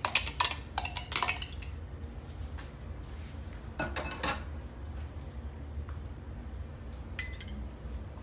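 Kitchen handling sounds: dishes and utensils knocking and clinking in a few short bursts, with a cluster at the start, another about four seconds in, and a brief ringing clink near the end.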